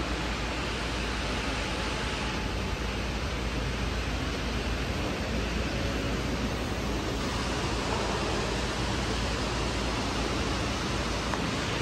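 Steady, even background hiss of room noise with no distinct events.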